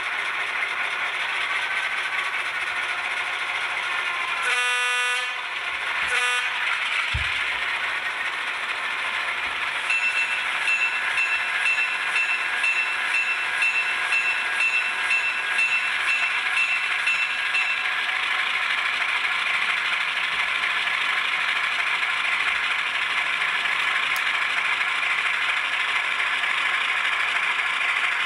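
ESU LokSound sound decoder in an N scale Burlington E5A diesel model playing engine sounds through its small speaker: the diesel engine runs steadily, the horn sounds twice about five and six seconds in, the first blast longer, and the bell rings about twice a second from about ten to eighteen seconds in.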